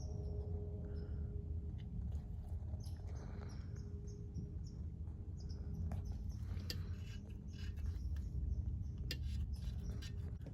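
Light clicks and taps of hand tools and brake parts being handled over a low, steady background rumble.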